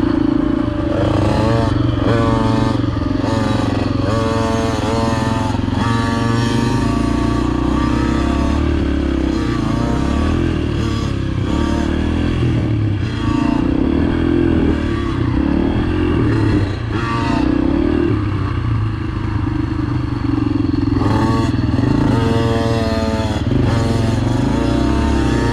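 Dirt bike engine revving hard as it is ridden around a motocross track, its pitch climbing and dropping again every second or two as the rider throttles up and shifts or backs off.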